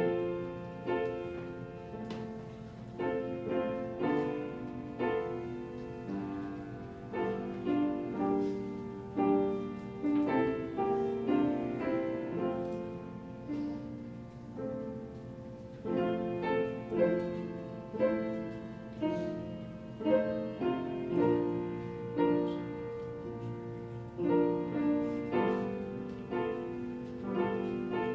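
Solo piano playing a slow, hymn-like piece, with chords struck and left to ring and fade.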